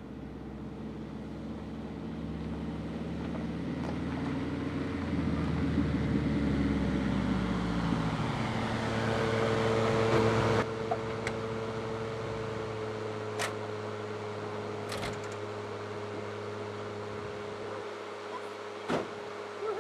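Volkswagen Vanagon Syncro van's engine driving up on a dirt road, getting steadily louder as it comes close, then dropping suddenly about halfway through and running on steadily at idle. A few sharp clicks follow, and a louder knock near the end as the sliding door opens.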